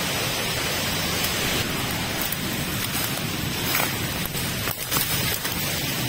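Steady rushing noise of falling water from a waterfall, even and unbroken.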